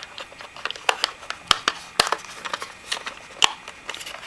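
Irregular sharp plastic clicks and taps as AAA batteries are pressed into a plastic alarm clock's battery compartment, the loudest about one and a half, two and three and a half seconds in.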